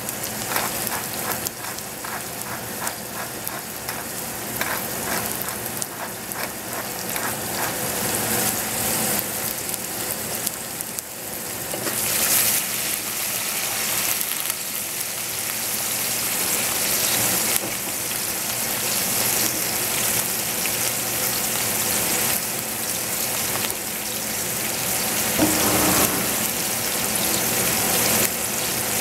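Sliced zucchini frying in a stainless steel saucepan: a steady sizzle with light crackles over the first several seconds, growing louder from about twelve seconds in.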